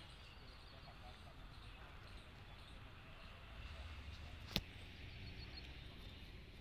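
Quiet outdoor ambience: a steady low rumble with faint, scattered bird chirps, and a single sharp click about four and a half seconds in.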